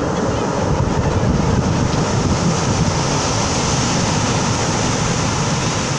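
Surf breaking and washing up a pebble beach in a steady rush of noise, with a deep rumble of wind buffeting the microphone.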